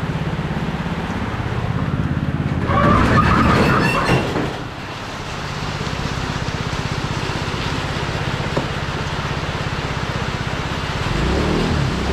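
A vehicle engine running steadily, heard from inside the cab, under a wash of road and rain noise. About three seconds in there is a louder swell of about a second and a half, with a higher whine in it.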